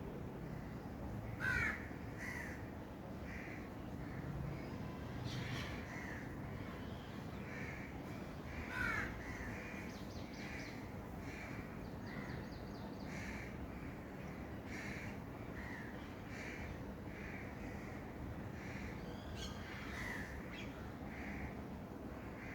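Birds calling: a short note repeated about once a second throughout, with two louder, sweeping calls about a second and a half in and about nine seconds in, over a steady outdoor hiss.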